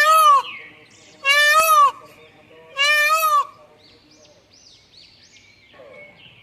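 A loud animal call repeated three times, about a second and a half apart, each a half-second cry that rises and falls in pitch, with faint high chirping of small birds in the quiet stretch after.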